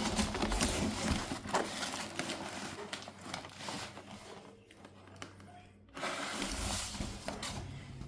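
Cardboard and plastic packaging being handled and unpacked: irregular rustling and crinkling with scattered small knocks and clicks, cutting out abruptly for about a second past the middle before resuming.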